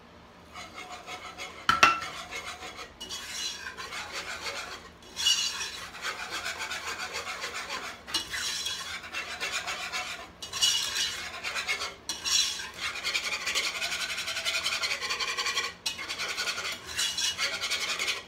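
A utensil stirring and scraping around the inside of a saucepan, in repeated strokes with short pauses, with a sharp clink against the pan about two seconds in. The stirring breaks up lumps of butter in a chocolate no-bake cookie mixture on the stove.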